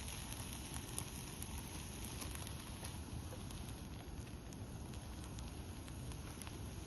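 Campfire crackling: faint scattered pops and ticks over a steady low rushing noise.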